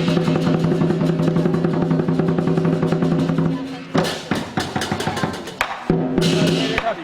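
Lion dance percussion: a fast drum roll with clashing cymbals over a steady ringing tone. A little past halfway the roll breaks off into a few separate strikes, then starts again near the end.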